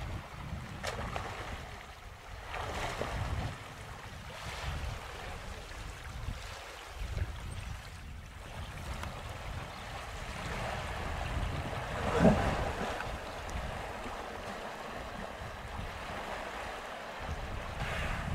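Water splashing in irregular bursts as a hippo struggles with a waterbuck, under wind rumbling on the microphone; the loudest burst comes about twelve seconds in.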